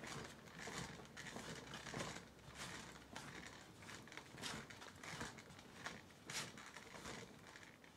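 Faint, irregular scraping of a plastic icing comb drawn through chocolate buttercream as the cake is turned by hand on a wooden turntable.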